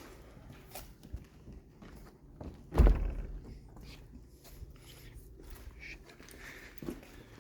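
Footsteps and small scattered knocks and crunches, with one heavy, low thump just under three seconds in that is the loudest sound.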